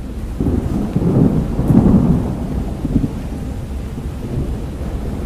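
Thunder rumbling over steady rain, the deep rumble swelling to its loudest about two seconds in and then easing off.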